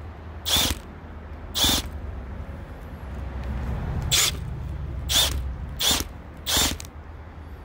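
Drill-powered drain auger running, its cable spinning in the pipe. A low motor hum swells in the middle, and short sharp noises come roughly once a second.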